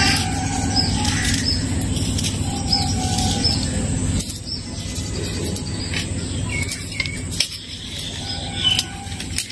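A steady low rumble, louder in the first half, with a few short high chirps and scattered light clicks as shallots are sliced with a small paring knife and the slices are stirred on a plastic plate.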